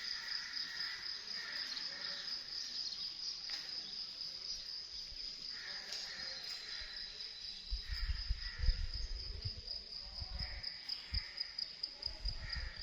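Cricket trilling steadily, a fast even high-pitched pulse. Low rumbling thumps come in for a couple of seconds past the middle and again near the end.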